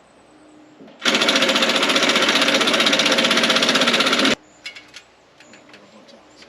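Impact driver running a screw through a gutter bracket into the fascia board: a loud, rapid, even rattle for about three seconds that stops abruptly, followed by a few light clicks.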